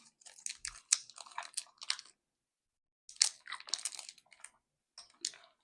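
Two clusters of close crackling and crunching as a piece of fried-chicken-flavoured candy is bitten and worked in the mouth.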